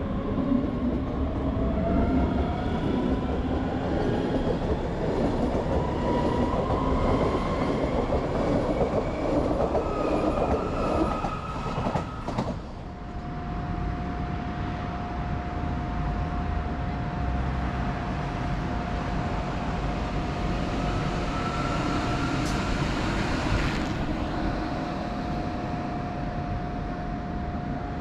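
S-Bahn electric multiple unit pulling away from the platform, its traction motors whining in several tones that climb steadily in pitch as it gathers speed over the rumble of wheels on rail. About twelve seconds in the sound cuts to a steadier rail rumble with one high, level tone and, later, a brief rising whine.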